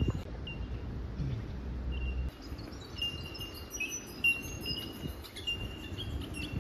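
Bush birds calling: many short, high, clear notes repeated over and over, overlapping one another.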